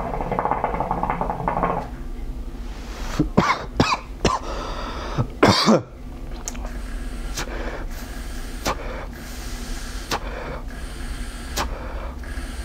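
Hookah water bubbling through the base as a man pulls a long draw, then several coughs, the loudest about five seconds in, with a few faint clicks after.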